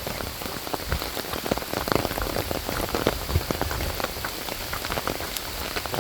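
Rain falling steadily, a dense, irregular patter of close drops.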